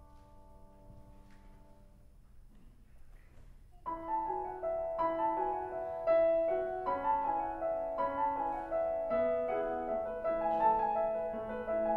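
Piano playing alone: a chord dies away, then about four seconds in a flowing passage of repeated notes begins and grows louder.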